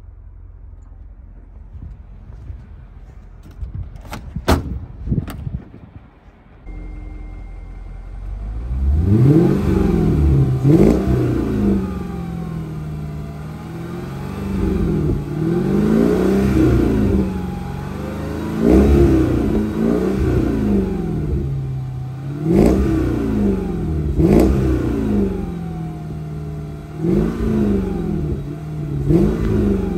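Mercedes-Benz W210 E-Class engine idling through an exhaust with a gutted muffler, then revved again and again from about nine seconds in, the pitch climbing and falling with each blip. A few sharp clicks come before the engine note begins.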